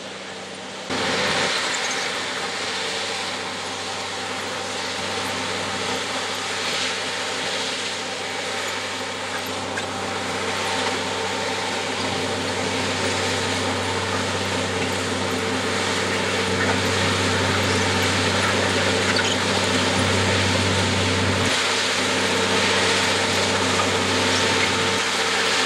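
Loram shoulder ballast cleaner at work: its engines running and its digging wheels churning through the shoulder ballast stone, a loud, steady mechanical din with a steady low hum. The noise jumps up about a second in and slowly grows louder as the machine passes.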